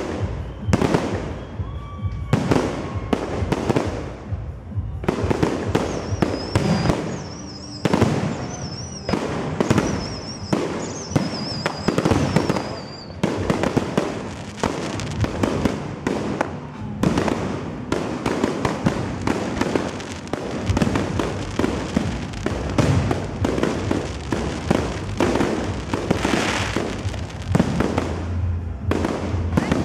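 Fireworks display: a rapid, unbroken series of aerial shell bursts and crackle. A wavering high whistle runs through the middle.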